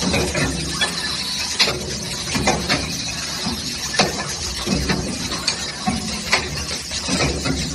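Gasket-to-lid assembly machine running: a steady mechanical hiss and hum with irregular sharp clicks and knocks from its mechanical hands and rotary table, about one or two a second.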